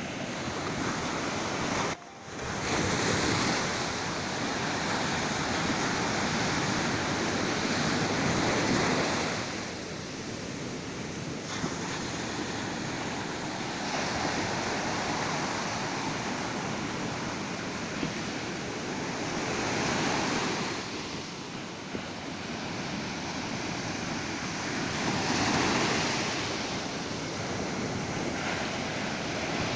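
Ocean surf breaking on a beach: a continuous wash of waves that swells and ebbs every several seconds. A brief drop-out about two seconds in.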